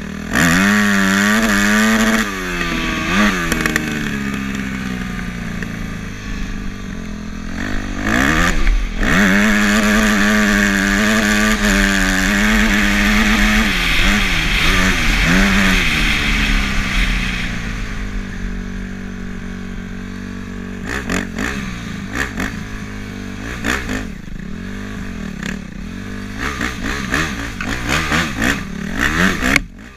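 Small off-road vehicle's engine running under load while riding, its pitch rising and falling with the throttle and held at high revs for several seconds in the middle, with wind rush. Toward the end the engine note drops and turns choppy, with clattering and scraping over rough ground.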